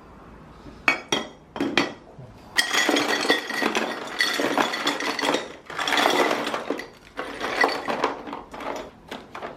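Dishes and cutlery clinking and clattering as they are handled, with a few sharp clicks at first and then longer stretches of rattling.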